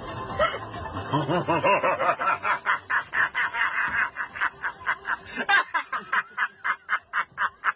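A person laughing hard: a long run of quick, breathy giggles, about five a second.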